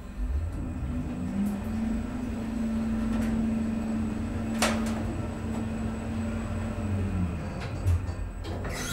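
Schindler EuroLift machine-room-less traction elevator riding up, heard from inside the car. The drive's hum rises in pitch as the car speeds up, holds steady, then falls as it slows to a stop. There is a sharp click about halfway through and a soft thump near the end.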